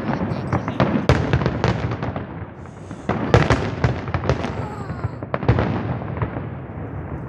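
Fireworks display: a rapid series of bangs and crackling, with the heaviest volleys about a second in, at about three seconds and at about five and a half seconds, dying away toward the end.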